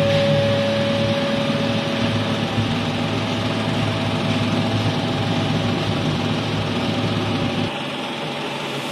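Freshly overhauled Perodua Viva 1.0's three-cylinder engine idling steadily.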